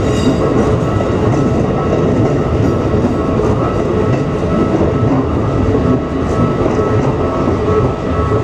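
Train running steadily on the rails: a constant rumble of wheels and running gear, with a few faint steady tones above it.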